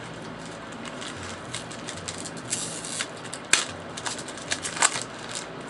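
Trading cards and their pack wrapper being handled: light rustling and ticking, with two sharper crackles about three and a half and nearly five seconds in, over a steady hiss.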